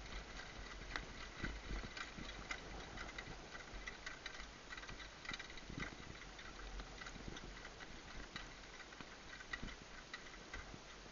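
Harness horse pulling a sulky at a jog: scattered, uneven knocks of hooves and the rattle of harness and sulky fittings, heard from the driver's seat with a steady low rumble of wind on the microphone.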